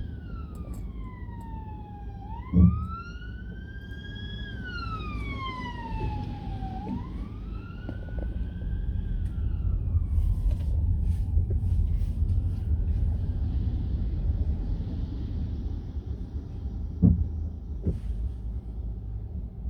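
Police car siren wailing in a slow rise and fall, about one cycle every four seconds, fading away about halfway through. Under it runs the low rumble of the car's cabin, and there are two sharp thumps.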